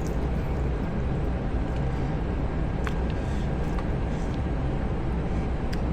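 Steady low background rumble with a faint constant hum and a few light clicks.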